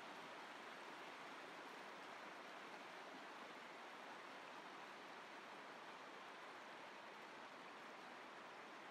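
Creek rapids rushing over rock ledges and boulders: a steady, even rush of water.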